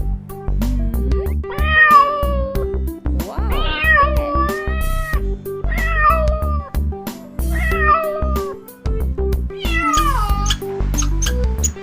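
A cat meowing five times, the second meow longer and drawn out, over background music with a steady beat.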